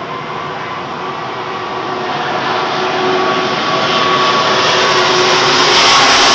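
Four-engine Airbus A340 airliner on low final approach, its jet engines growing steadily louder as it nears overhead, with a faint whine in the noise.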